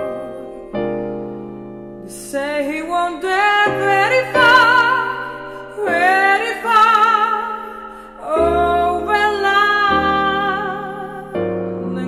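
A woman singing slow, sustained phrases with a wide vibrato over held piano chords that change every couple of seconds.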